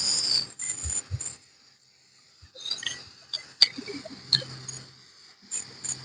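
Paintbrush working over a garden chair: short scratchy brushing strokes with scattered small clicks and knocks, after a brief pause about two seconds in.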